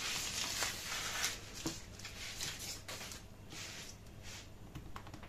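Baking paper rustling and crinkling as it is peeled off and handled, strongest over the first second and a half, then a few fainter rustles.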